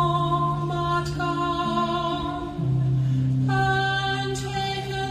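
Background music: a slow song with a voice holding long, steady notes over accompaniment, the notes changing a couple of times.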